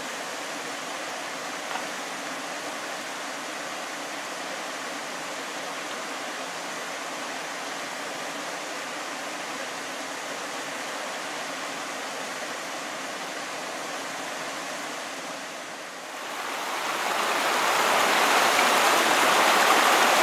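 Rushing creek water tumbling over boulders, a steady even hiss that dips briefly about sixteen seconds in and then grows louder and brighter.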